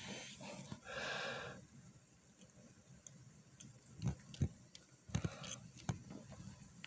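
A short breathy hiss about a second in, then several sharp, light knocks and scrapes against wood and bark in a cockroach enclosure.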